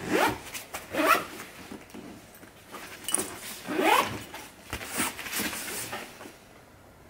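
Fabric backpack's zipper being pulled shut in several short strokes, each a quick rising zip, the loudest about a second in and about four seconds in.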